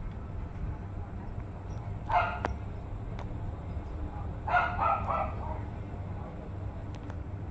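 Tokay gecko giving short croaking barks in defensive threat, mouth gaped: one call about two seconds in and another about four and a half seconds in, the second broken into three quick pulses.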